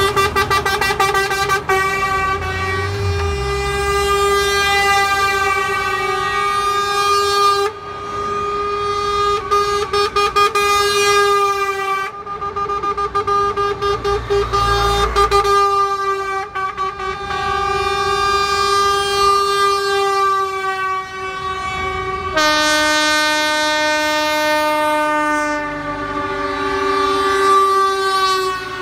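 Lorry air horns sounding in long, held blasts as the trucks drive past, one horn following another, over the low rumble of passing truck engines. At first the horn is tooted in quick stabs, and about 22 seconds in a lower horn with several notes takes over.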